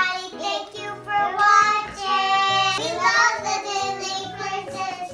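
A child's voice singing a tune in long held notes, over a steady instrumental backing.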